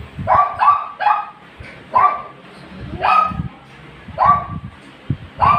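A dog barking repeatedly: about seven short, sharp barks, two in quick succession about a second in, then roughly one a second.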